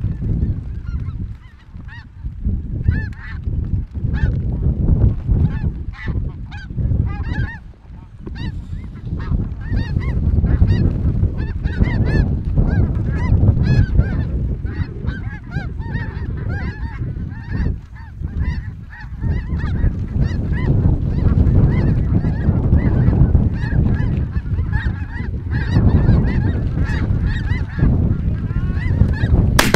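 A large flock of snow geese calling overhead: a dense, continuous chorus of many overlapping high, yelping honks.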